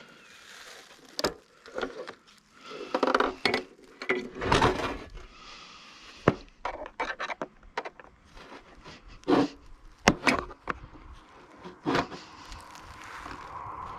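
Metal parts of a safe door being handled and worked loose by hand: irregular clanks, knocks and scraping, several sharp knocks between about six and twelve seconds in. A steady noise starts to build near the end.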